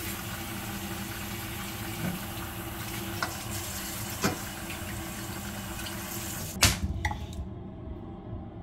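Kitchen tap water running into a metal colander while raw chicken pieces are rinsed and turned by hand, with a few light knocks. It stops suddenly with a sharp knock about two-thirds of the way through, leaving only a faint, dull background.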